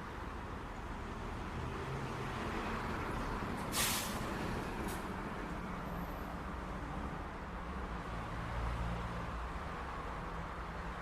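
City street traffic: a steady rumble of passing vehicles. About four seconds in there is a short, sharp hiss of air, with a fainter one a second later, and a heavier engine rises and passes around eight to nine seconds in.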